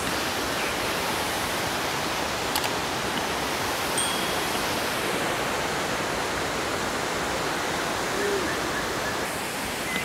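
Steady rushing of a waterfall pouring into a rock pool, an even, unbroken sound of falling water.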